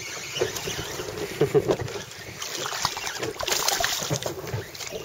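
Wind buffeting the microphone over choppy sea water lapping and splashing against a boat, an uneven rushing with frequent small splashes.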